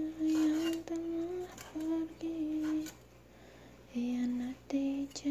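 A woman humming a tune in held notes that step up and down, with a few sharp chops of a cleaver on a wooden cutting board between the phrases.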